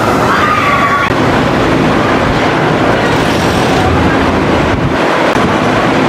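Tennessee Tornado steel roller coaster train running along its track, a steady loud rumble, with riders' screams near the start.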